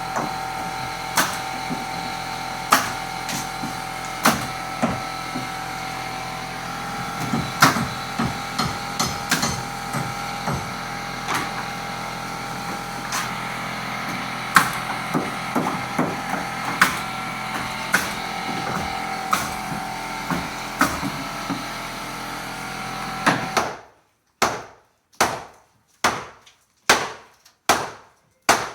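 Hammer blows on wood, every second or two, over a steady machine hum. Near the end the hum cuts off suddenly and quicker blows follow, about two a second.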